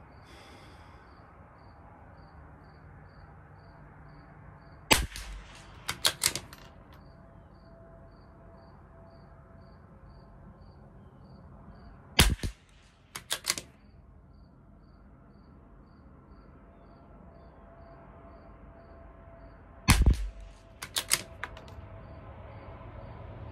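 Three shots from a Tikka T1X .22 LR bolt-action rifle, roughly seven seconds apart. Each sharp crack is followed about a second later by a short run of clicks as the bolt is worked to chamber the next round.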